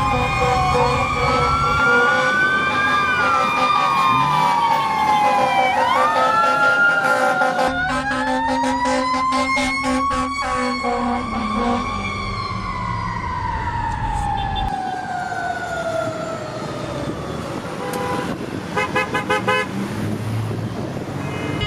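Emergency vehicle sirens wailing in street traffic, several slow rising-and-falling tones overlapping. Near the end comes a quick run of short horn toots.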